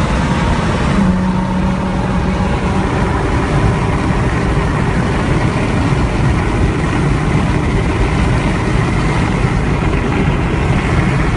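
A car driving at a steady pace: a loud, even, low engine drone mixed with road noise, with no revving.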